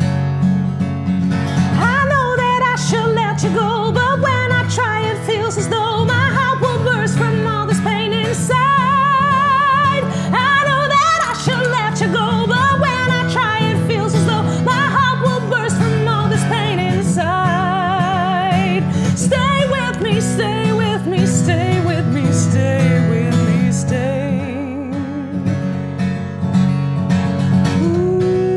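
A female singer's voice singing long, wavering held notes with vibrato, with no clear words, over a strummed acoustic guitar. The voice fades out near the end, leaving the guitar.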